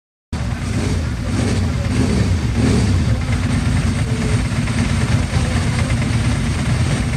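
Vehicle engines running steadily, with people's voices mixed in; the sound cuts in suddenly.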